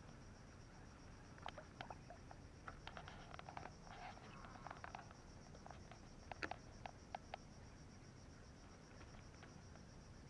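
Near silence: a faint, quiet background with scattered, irregular soft clicks and ticks.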